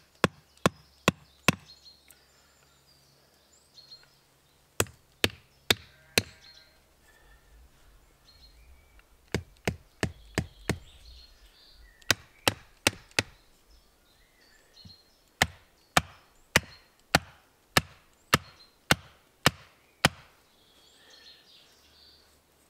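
A small hatchet striking a wooden stake to drive it into the forest floor: sharp wooden knocks in short groups of three or four, then a steady run of about ten strikes at roughly two a second.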